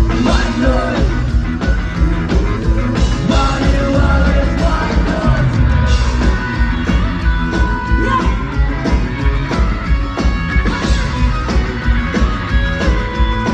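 Ska-punk band playing live with a sung lead vocal over a steady, driving beat.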